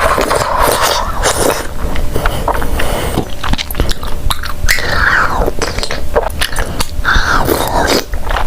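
Close-miked mouth sounds of someone eating bubble tea: chewing tapioca pearls, with many quick wet clicks and smacks.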